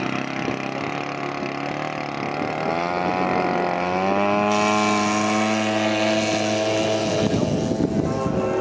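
Engine of a large-scale radio-controlled F4U Corsair model opening up for take-off. Its pitch climbs over about two seconds, then holds steady and high. Near the end it gives way to a rougher, noisier engine sound.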